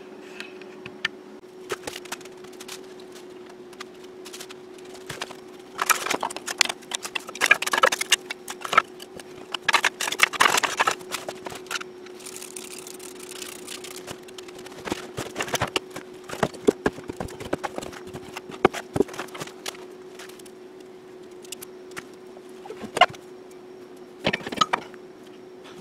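Irregular clatter, knocks and rustling from loading kindling into a wood stove and closing its steel door, busiest in the first half and with a sharp knock near the end, over a steady low hum.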